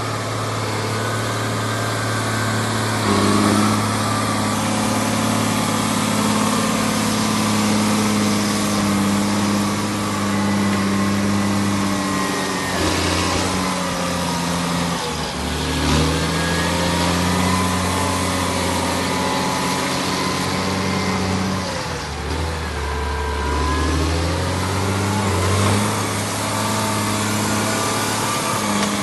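Case IH Magnum 290 tractor's six-cylinder turbo-diesel engine running as the tractor drives around. Its note steps up about three seconds in, then dips and climbs back twice: once around the middle and again about three quarters of the way through.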